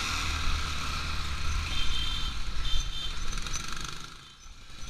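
ATV engine running during a trail ride, with a brief high whine in the middle and the engine sound dropping away for a moment near the end.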